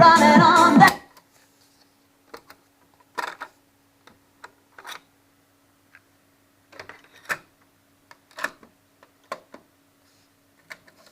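Music cuts off about a second in, followed by scattered sharp clicks and clunks of a Victor PC-W330 boombox's controls being worked, over a faint steady hum.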